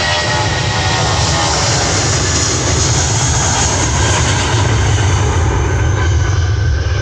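Airbus A320-family airliner's twin jet engines at takeoff power during the takeoff roll: a loud, steady roar with a deep rumble underneath and a hiss on top. A high whine fades out about a second in.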